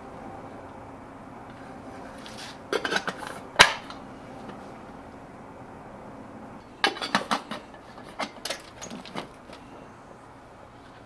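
Aluminium cook pot and lid clattering as they are set into a stove windscreen: a quick run of knocks about three seconds in ending in one sharp metallic clink, then a second run of lighter clinks and rattles around seven to nine seconds.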